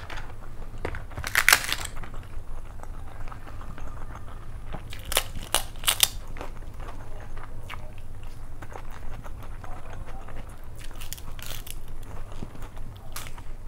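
Crisp fried papad being broken by hand and bitten, giving several sharp crunches and crackles, three in quick succession about five to six seconds in, with close-up mouth chewing between them.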